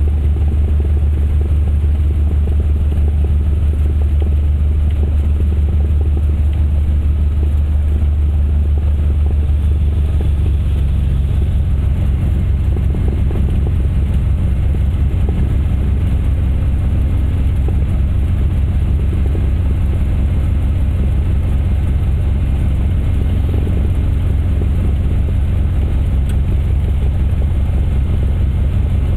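Cessna 172's piston engine and propeller running steadily at taxi power, heard from inside the cabin as a low drone. The engine note shifts slightly about ten seconds in.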